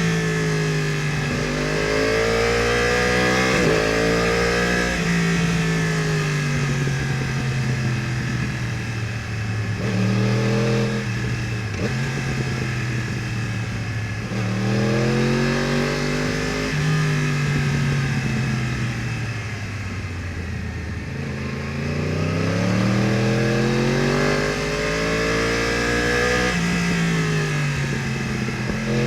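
2015 Yamaha R1's crossplane inline-four, breathing through Akrapovič headers and exhaust, heard from the rider's position. It revs up and falls back about five times as the bike accelerates and slows.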